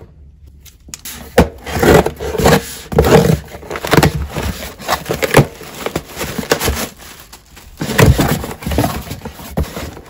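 A cardboard shipping box being cut open and unpacked by hand: irregular scrapes, rips and rustles of cardboard flaps and plastic packaging, starting about a second in.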